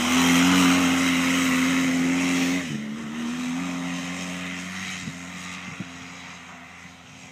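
Polaris Sportsman 700 ATV engine held at high revs as the quad pulls away. About two and a half seconds in, the engine note drops a little, then keeps running and fades steadily as the ATV rides off into the distance.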